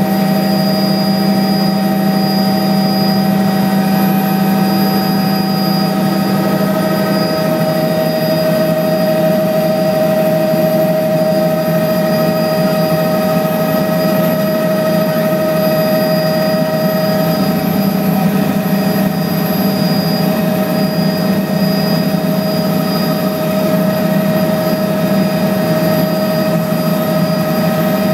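Steady drone of a small aircraft's engine heard from inside the cabin in flight, with a slight change in pitch about seven seconds in.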